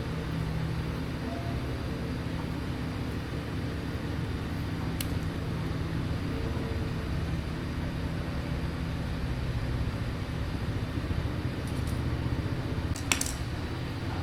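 Steady low mechanical rumble, with a light click about five seconds in and a short clatter near the end.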